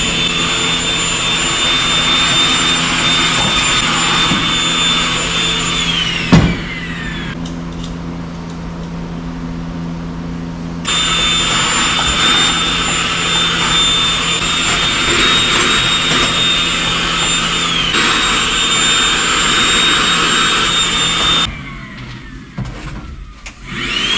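Vacuum cleaner running with a steady high whine while sucking debris from an excavator cab floor. About six seconds in the whine falls in pitch with a sharp knock and the sound goes duller for a few seconds before coming back full. It shuts off about three seconds before the end, then briefly whines up again.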